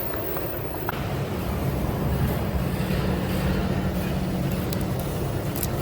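Continuous drum carbonization furnace machinery running with a steady low rumble, and a few faint clicks over it.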